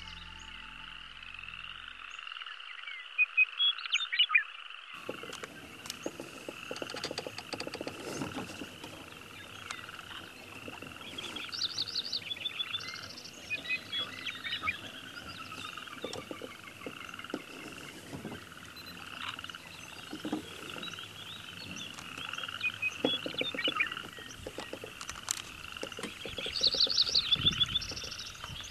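A chorus of frogs croaking in a steady, rhythmic pulse, with brief bird chirps over it, loudest about three seconds in and near the end. A low rumble joins about five seconds in.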